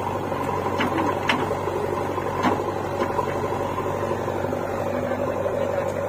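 Diesel engines of a JCB 3DX backhoe loader and a tractor running steadily, with a few sharp knocks in the first few seconds.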